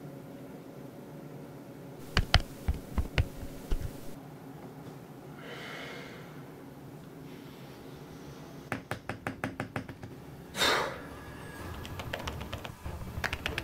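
Several sharp taps a couple of seconds in, a quick run of rapid clicks later on, and typing on a tablet's keyboard case starting near the end, a soft patter of key presses.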